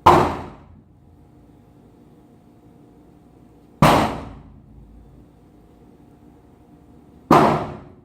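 Bouncy ball slammed against a hard surface: three loud bangs about three and a half seconds apart, each ringing out briefly.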